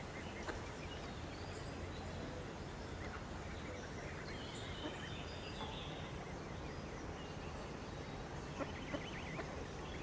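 Outdoor river ambience: scattered short bird calls and chirps over a steady low background hum, with a quick run of high calls near the end.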